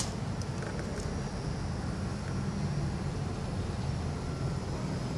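Steady low rumble of road traffic going by.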